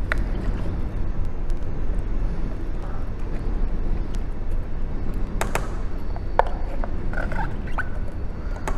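A spatula working canned pumpkin out of a can into a stainless steel pot, with a few sharp taps of utensil on metal about two thirds of the way through, over a steady low background rumble.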